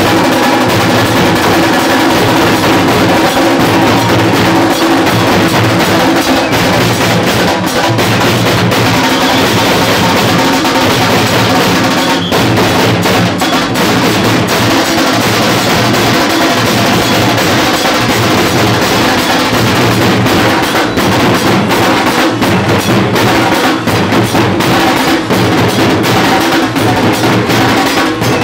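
A procession drum band plays loud, continuous, fast drumming: several large dhol drums are beaten with sticks, and hand cymbals ring over them.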